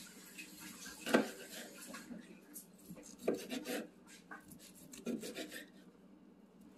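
Knife sawing through the crusty bark of a smoked brisket on a wooden cutting board: rasping back-and-forth strokes, with louder scrapes about one, three and five seconds in.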